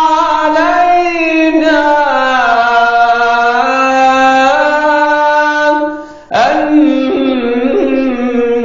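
A male munshid sings an Islamic ibtihal (devotional supplication) solo, drawing out 'alayna' in a long melismatic phrase with slowly gliding ornaments. Near the end he breaks off briefly for breath and starts a new phrase.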